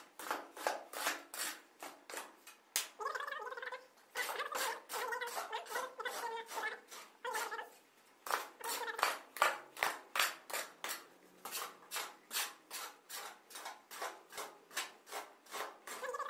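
A spade chopping and scraping through a heap of sand and cement on a concrete floor, mixing dry mortar, in quick even strokes about two to three a second.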